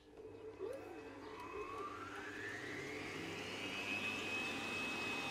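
Electric mixer starting up to beat eggs and sugar: its motor whine rises in pitch over about two and a half seconds, then holds steady.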